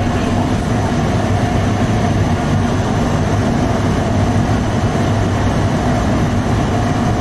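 Commercial bakery conveyor tunnel oven running, a steady, unchanging low mechanical drone from its burners, blowers and belt drive as flatbreads move through on the wire-mesh belt.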